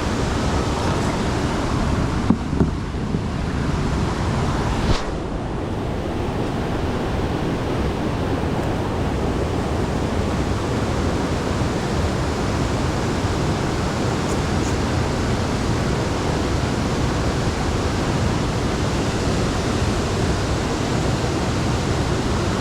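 Steady rushing noise of moving water below a dam, with a couple of short knocks about two and a half and five seconds in.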